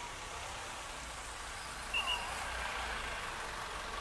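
Two short high electronic beeps about halfway through, over a steady wash of outdoor noise.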